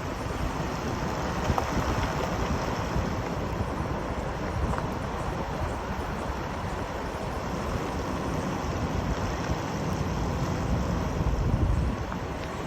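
Toyota Land Cruiser 100 Series on the move: steady road and running noise, a low rumble with a hiss of wind over it.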